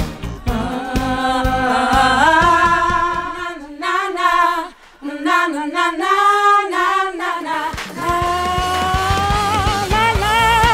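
A woman's voice sings a pop melody with vibrato over a band backing. About three and a half seconds in, the accompaniment drops away and the voice carries on almost alone for around four seconds, dipping briefly near the five-second mark. The band comes back in near the eight-second mark.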